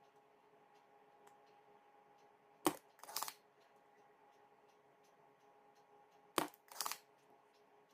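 Two sharp clicks about four seconds apart, each followed a moment later by a short scraping burst, as a Baofeng UV-R5 handheld radio and its parts are handled, over a faint steady hum.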